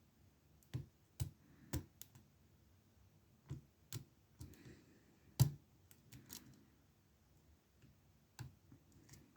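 Faint, irregular metallic clicks of a lock pick and tension wrench working the pin stack of an Abus 65/50 padlock during single-pin picking, with one louder click about five and a half seconds in.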